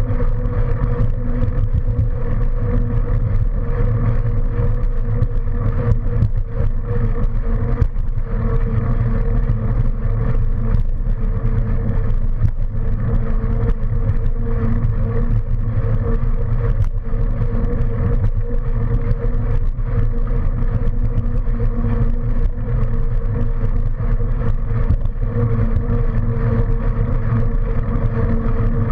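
Wind rumbling over the microphone while moving at a steady pace, with a steady mid-pitched hum from the ride underneath and occasional light clicks and rattles.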